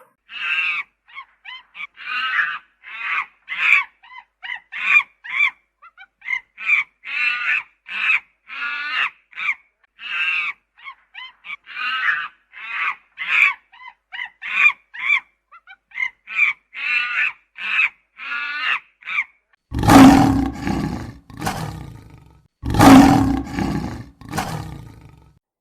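A long run of short, high animal calls, several a second, followed near the end by two loud roars of a large animal, each about two to three seconds long.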